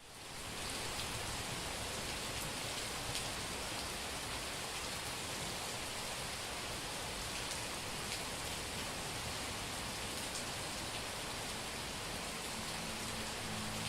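Heavy summer-storm rain falling steadily on a street, a dense even hiss with a few separate drops ticking through it. It fades in over the first second.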